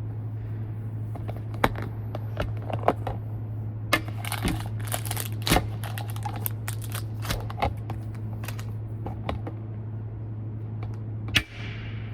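Irregular sharp clicks and taps, bunched together in the middle and with one louder click near the end, over a steady low hum.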